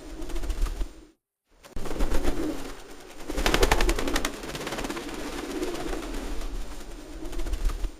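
Pigeons cooing in low, throaty phrases that repeat one after another. The sound breaks off into silence for about half a second a little after one second in, and a quick run of clicks sounds around the middle.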